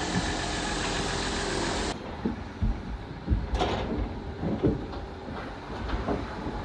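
A steady rushing noise that cuts off about two seconds in, followed by a string of irregular knocks, thuds and clanks from a livestock trailer as cattle are loaded.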